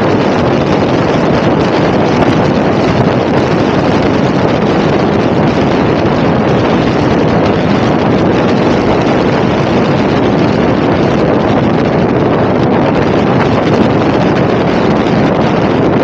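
Steady, loud wind noise buffeting the microphone of a 360 camera on a moving Honda Click 125 cc scooter, with the scooter's engine running underneath.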